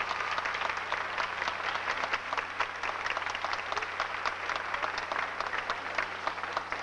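Audience applauding, many hands clapping in a dense, even patter that holds steady throughout.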